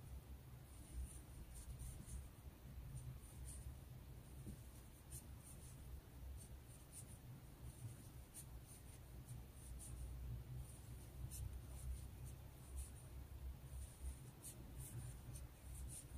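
Faint, irregular scratching ticks of a metal crochet hook catching and drawing yarn through stitches while half double crochet increases are worked, over a low steady hum.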